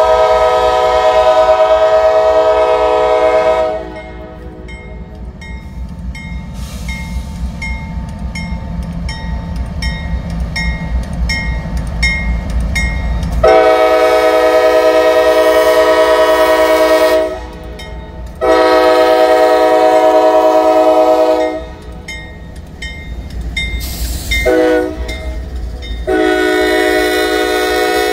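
Norfolk Southern diesel locomotives approach and pass, sounding a multi-chime air horn: a long blast, then the long, long, short, long grade-crossing pattern. Between the blasts the diesel engines rumble, growing louder as they near, and a bell dings about twice a second.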